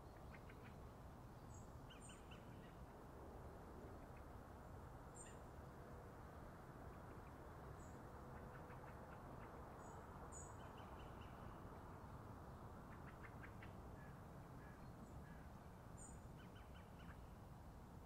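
Faint autumn park ambience: small birds give short, high call notes every few seconds, with a few quick runs of chattering notes, over a steady low background hiss.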